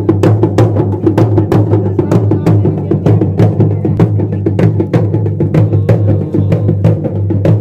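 Traditional Pahari dhol drums beaten with sticks in a fast, steady rhythm of sharp strokes, several a second, over a continuous low hum.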